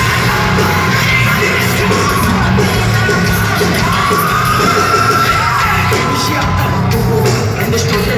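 Heavy metal band playing live at full volume, heard from the crowd near the stage. Long held vocal notes slide up and down in pitch over the band, with yells from the audience.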